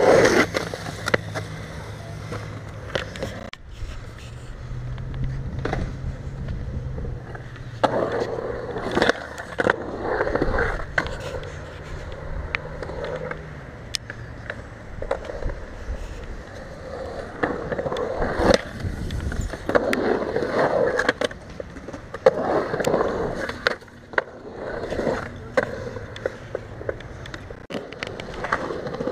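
Skateboard wheels rolling and carving through a concrete bowl: a steady rumble that swells and fades, with sharp clacks from the board scattered throughout.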